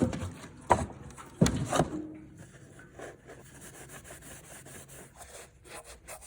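Two sharp knocks, less than a second apart, then quieter, repeated rubbing strokes on a hard surface, like hand work cleaning and taping around a fitting.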